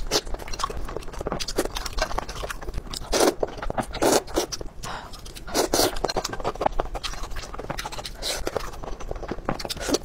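Close-miked chewing: wet, irregular mouth sounds of a person eating a bite of skewered meatball.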